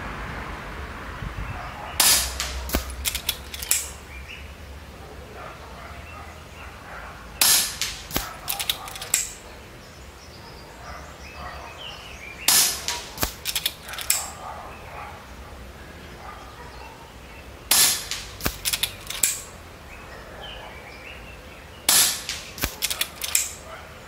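RTI Prophet II 5.5 mm PCP air rifle firing five shots about five seconds apart, each a sharp crack followed by a short run of clicks. The rifle's one-way check valve has been removed, the valve that had made it squeak.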